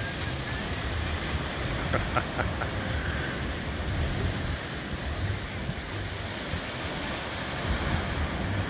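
Sea surf washing against the rocks at the foot of a seawall, with wind buffeting the microphone. A few quick clicks sound about two seconds in.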